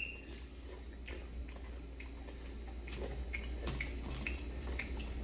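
Close-up chewing, with faint wet mouth clicks coming irregularly several times a second.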